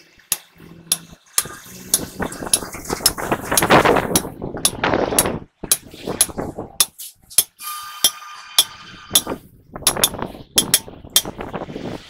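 Hammer blows on a steel drift punch set against the bearing race inside a truck wheel hub. The sharp metal-on-metal strikes come irregularly, about one or two a second, some with a short metallic ring. A stretch of rougher noise in the middle is the loudest part.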